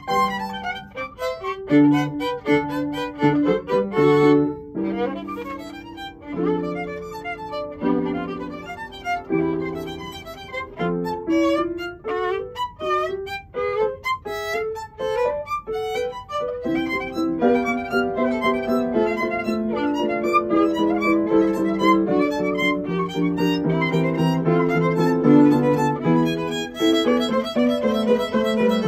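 Violin playing a classical piece with upright piano accompaniment. The piano thins out for a few seconds midway, then comes back in with fuller chords under the violin.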